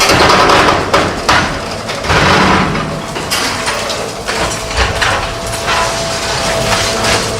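Remote-controlled demolition robot working on concrete: machinery running with irregular knocks and clatter, and a steady whine from about three seconds in.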